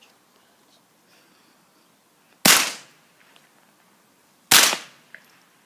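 Two sharp shots from an unsilenced .22 calibre rifle, about two seconds apart, each with a brief echo.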